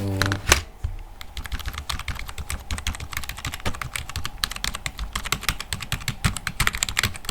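Continuous fast typing on a membrane computer keyboard: a dense, irregular stream of key presses, several per second.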